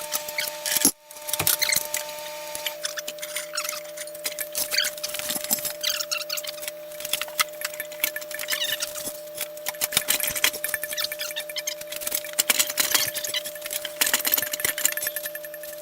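Irregular metallic clicks, knocks and clatter of tools and parts being handled while the head of a milling machine is rigged and worked on, over a steady electrical hum.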